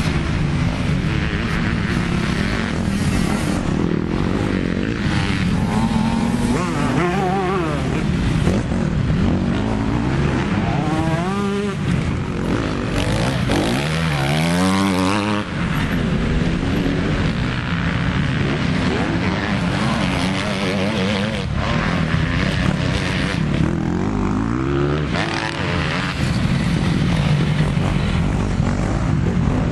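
Several motocross dirt bikes running on the track, their engines revving up and down as they accelerate and shift. About halfway through, one bike revs hard close by, its pitch rising and then falling away.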